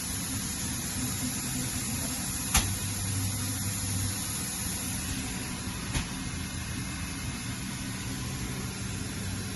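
Hurco VMX42U vertical machining center running with a steady mechanical hum and a low tone that comes and goes. A sharp click sounds about two and a half seconds in and another about six seconds in.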